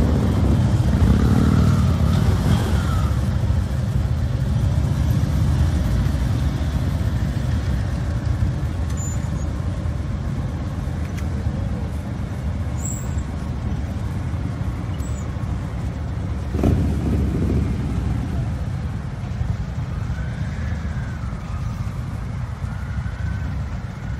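Several Indian V-twin touring motorcycles running as the group rides off one after another, the engine sound loudest at the start and fading a little over time. A brief louder burst comes about two-thirds of the way through.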